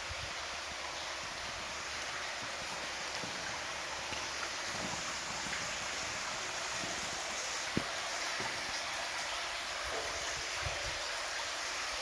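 Stream water flowing steadily, with a few soft low knocks and one sharp click about eight seconds in.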